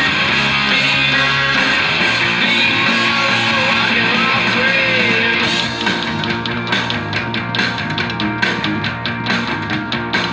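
Guitar playing rock and roll: a dense ringing wash of chords for the first half, then quick rhythmic strumming from about six seconds in.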